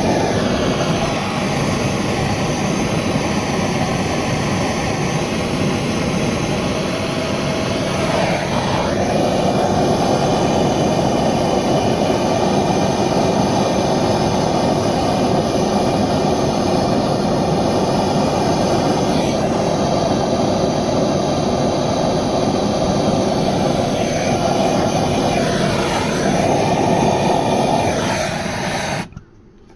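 Handheld gas torch burning with a steady rushing noise while heating a copper pipe joint for soldering. It shifts a little in tone a few times and cuts off abruptly near the end as the torch is shut off.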